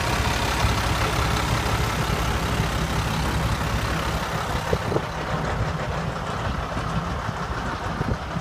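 Diesel engine of an Easy Rider fertilizer spreader idling steadily, heard close to the engine bay, a little quieter after about five seconds.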